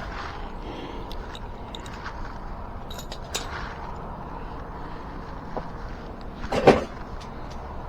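Metal hand tools clicking and clanking against the e-bike's rear-wheel hardware as the axle nuts are worked loose, with scattered light clicks and one louder clank about two-thirds of the way in.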